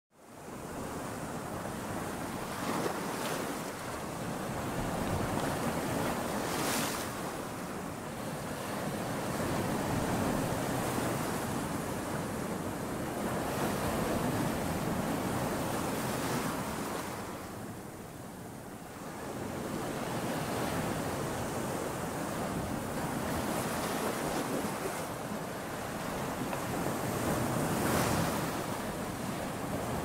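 Ocean waves breaking and washing over the shore: a continuous rush of surf that swells and eases, with louder hissing surges every several seconds and a brief lull a little past the middle.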